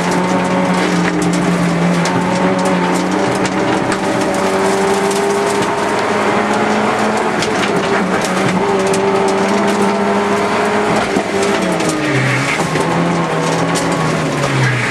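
Car engine heard from inside the cabin, held at high revs under hard acceleration with a steady note for about ten seconds, then dropping and picking up again twice near the end as the driver lifts off and accelerates again. Frequent small ticks and rattles run throughout, with a brief tyre squeal about twelve seconds in.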